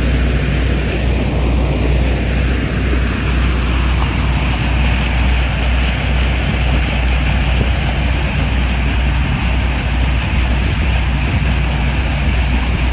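Tour boat's engine running steadily underway: a constant low drone under a rushing wash of wind and water noise.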